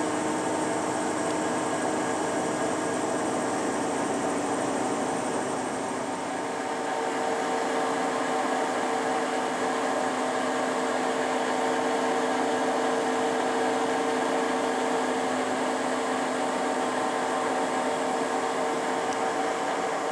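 Lucas horizontal boring mill running, a steady mechanical hum with several held tones from its 20 HP drive and gearing. About six seconds in, the pitch mix shifts: one middle tone grows stronger and the deepest hum fades.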